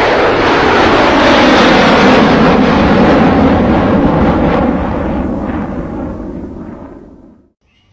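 Loud roar of an aircraft passing overhead, falling slowly in pitch and fading, then cut off abruptly near the end.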